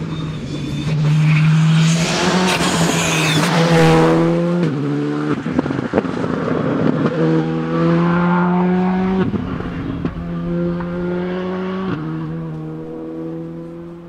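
Rally car at speed, its engine revving hard and changing gear several times, the pitch climbing and then dropping with each shift. A few sharp cracks come around the middle, and the engine fades near the end as the car draws away.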